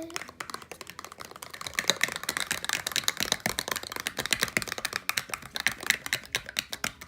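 Spoons stirring PVA glue and paint in mixing tubs for slime, a rapid, irregular run of clicks and taps against the tubs.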